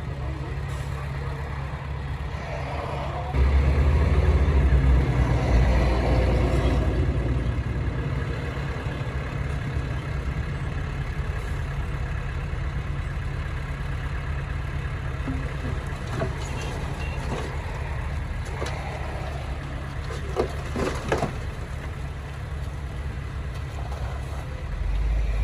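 Heavy diesel engine of earthmoving equipment running steadily, rising sharply in loudness about three seconds in as it takes load, then easing back to a steady run, with a few short knocks later on.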